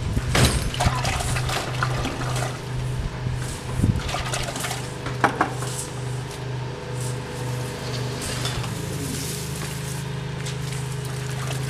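Water sloshing and splashing in a plastic bucket as bunches of garlic, bulbs and stalks, are dunked and swished to rinse off the dirt, with irregular splashes and knocks throughout. A steady low hum runs underneath.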